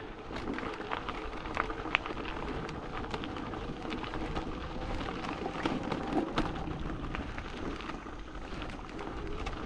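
Continuous crunching and scuffing over loose gravelly ground, with many small irregular clicks and knocks.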